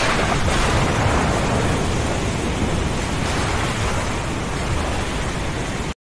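Thunderstorm: a continuous low rumble of thunder under a steady hiss of rain, cutting off suddenly near the end.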